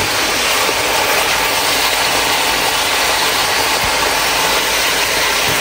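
Bone-in meat frying in a pot with onions and nihari masala, giving a loud, steady sizzle.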